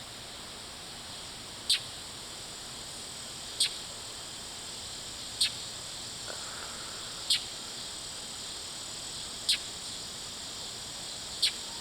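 A northern mockingbird's short harsh scolding call, repeated evenly about every two seconds: the alarm given while mobbing a cat. Under it runs the steady high drone of crickets or other insects.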